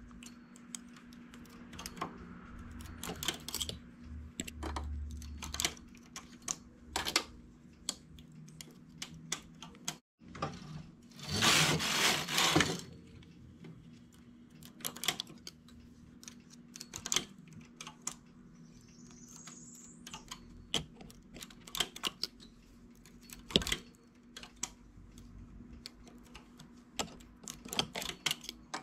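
Small metal clicks and taps of a hand transfer tool lifting and moving stitches on the steel needles of a flatbed knitting machine, scattered and irregular. About 11 seconds in, the knitting carriage is pushed across the needle bed to knit a row: a rushing clatter lasting about two seconds.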